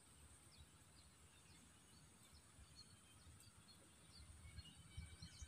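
Near silence: faint outdoor ambience with scattered faint high chirps, a little more frequent near the end.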